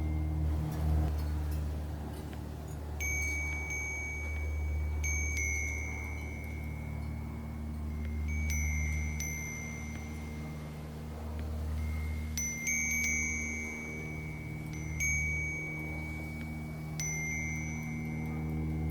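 Wind chime stirred by the wind, its high ringing notes struck irregularly every second or two, each one ringing on. A steady low hum runs underneath.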